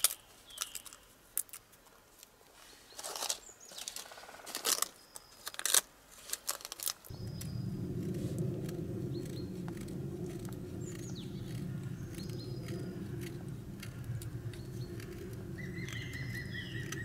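Dry rustling and crackling with scattered sharp clicks, while small songbirds chirp now and then. About seven seconds in, a steady low rushing noise sets in abruptly and continues, and a short bird trill sounds near the end.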